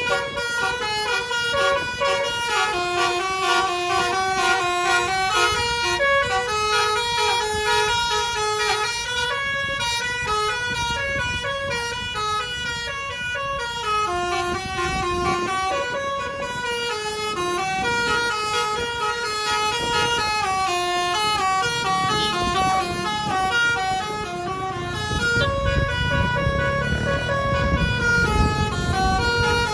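Bus telolet basuri horn, a set of electric trumpet horns, playing a long continuous tune of quick stepping notes with several pitches sounding together. A bus engine and road rumble grow louder in the last several seconds.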